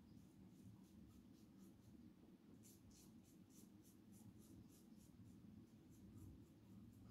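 Faint, quick scraping strokes of a RazoRock Wunderbar T-bar safety razor with a Rimei blade cutting stubble through soap lather, about four short strokes a second.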